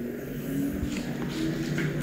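A motor spinning up: a hum rising steadily in pitch and levelling off near the end.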